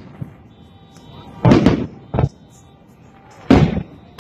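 Aerial firework shells bursting: two loud booms about two seconds apart, about a second and a half in and near the end, with a smaller bang between them.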